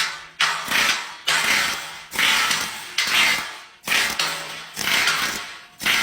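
Rhythmic strokes of a work tool, about one a second, each starting sharply and fading away.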